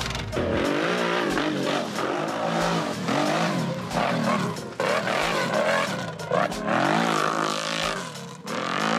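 Off-road vehicle engine revving hard, its pitch rising and falling again and again as it is worked. A steady bass beat from background music thumps under it.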